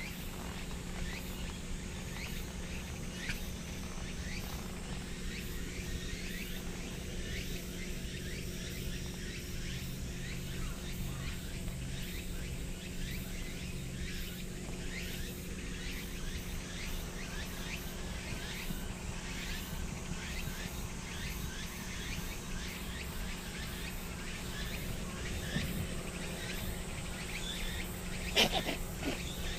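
Outdoor ambience: many short high chirps, several a second, over a steady low hum, with a single sharp click near the end.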